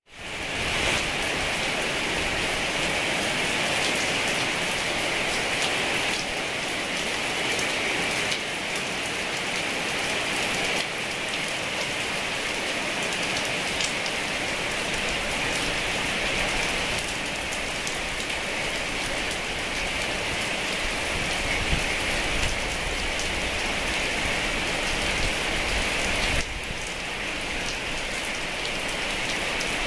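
Heavy rain falling steadily, a dense even hiss that fades in over the first second.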